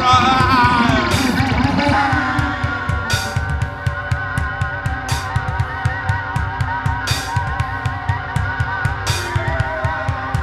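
Rock band playing an instrumental passage with no vocals: guitar lines that waver in pitch over a steady drum beat, with a cymbal crash about every two seconds.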